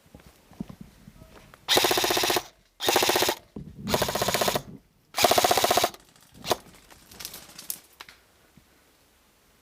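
Airsoft rifle firing on full auto in four short bursts of rapid shots, followed by a few scattered lighter single shots.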